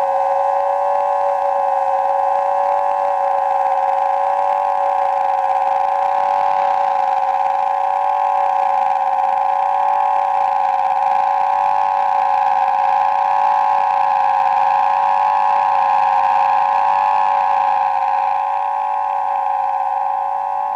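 A sustained droning musical chord of several steady tones held together and wavering slightly, easing off a little near the end.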